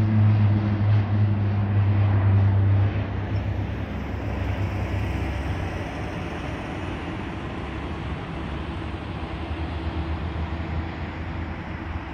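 Beech 1900C twin turboprop, with its two Pratt & Whitney Canada PT6A engines, climbing out after takeoff: a propeller drone with a strong low hum that drops off about three seconds in as the plane turns away, leaving a fainter steady drone and rush as it recedes.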